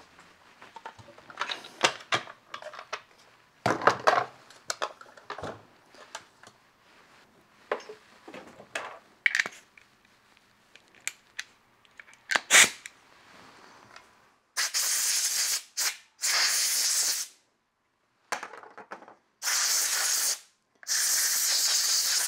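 Plastic chainsaw parts clicking and clattering as they are handled and set down on a workbench mat, with one sharp click about twelve seconds in. From about fourteen seconds on come four or five short, abrupt blasts of hissing compressed air, blowing the parts clean.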